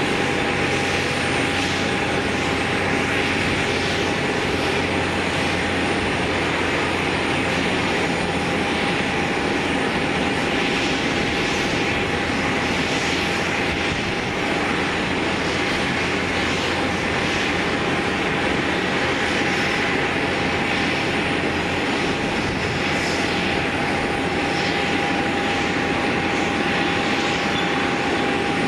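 Boeing 767 jet airliner on the apron, its turbines running steadily with a constant high whine over a broad rushing noise.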